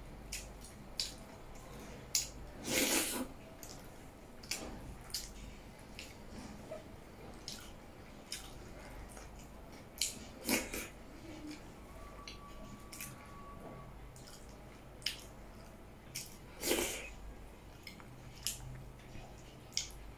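Close-miked wet eating sounds: fingers squishing dhido dipped in stinging-nettle soup, with lip smacks and small wet clicks, and a few louder slurps about three, ten and seventeen seconds in.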